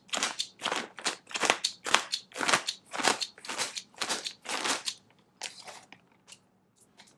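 Packaging being pulled open and handled by hand: a quick run of crunchy crinkles, about three a second, for roughly five seconds, then only a few faint clicks near the end.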